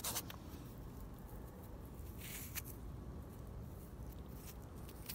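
Faint handling noise as fingers rub dirt off a freshly dug lead bullet: a short rubbing scrape at the start and another brief scrape about two seconds in, over a low steady outdoor rumble.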